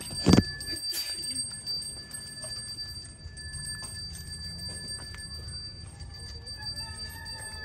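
A Balinese priest's hand bell (genta) rung without a break, giving a steady high metallic ringing, with one sharp loud knock about a third of a second in.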